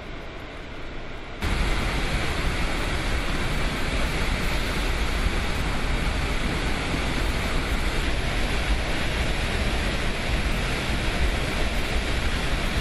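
Water released from a dam's flood outlets rushing in a heavy, steady noise. It jumps much louder about a second and a half in.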